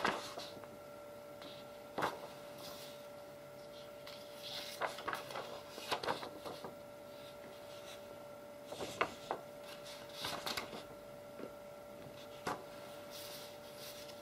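Sheets of thin office paper, painted in oil, being handled and leafed through: rustling with sharp flicks and snaps, some single and some in quick clusters. A steady faint hum runs underneath.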